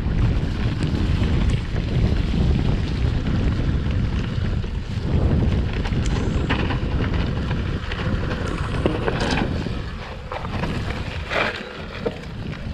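Wind buffeting the microphone in a steady low rumble, with a few brief higher-pitched sounds in the second half, where the rumble eases for a couple of seconds.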